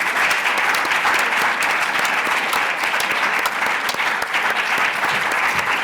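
Audience applause: a crowd clapping steadily as a guest is introduced on stage.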